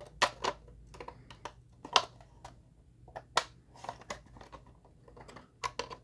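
Hard plastic model kit parts clicking and tapping together as the pilot house deck is pressed and test-fitted onto the hull. The clicks come at irregular times, the loudest about two seconds in.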